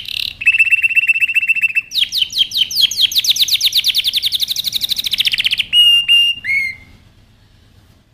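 Male domestic canary singing an excited breeding-season song. It opens with a fast, even trill, runs into a long roll of rapid falling notes, gives a few separate notes, and stops about seven seconds in.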